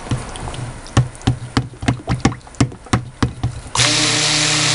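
Stick blender being stirred by hand through thick soap batter in a glass bowl with the motor off, its head knocking irregularly against the bowl about three or four times a second. Near the end the blender motor buzzes back on for pulse-blending.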